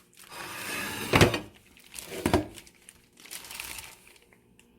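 Plastic crinkling and rustling as seasoned bellflower root is handled and scooped into a dish, with a sharp knock about a second in and another about two seconds in.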